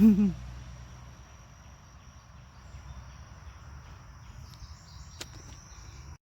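A steady, high-pitched insect drone over low wind rumble, after a short vocal hum at the very start. A single sharp click comes about five seconds in, and the sound cuts off just before the end.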